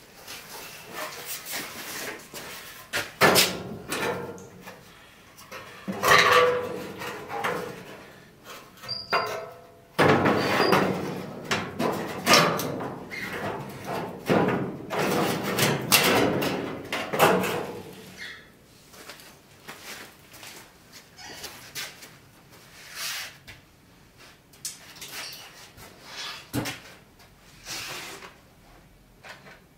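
A sheet-steel aftermarket rear wheel arch panel being handled and offered up against an old VW Beetle's steel body. Irregular scraping, rubbing and knocks of metal on metal, busy at first and thinning to occasional knocks in the second half.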